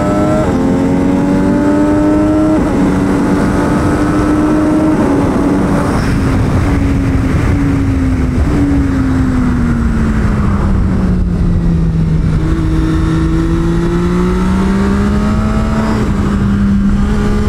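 MV Agusta F3 800 RC's inline three-cylinder engine under way on track, with constant wind rush. It climbs in pitch with two quick upshifts in the first few seconds, settles, eases down in pitch through the middle, then pulls up again near the end.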